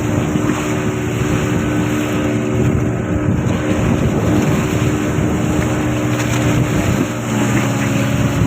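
Fishing boat's engine running steadily under wind buffeting the microphone; about seven seconds in, the engine note changes.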